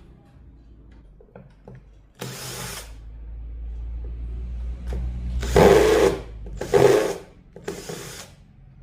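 A small power tool run in four short bursts, about two, five and a half, six and a half, and seven and a half seconds in, with a low hum underneath the first part.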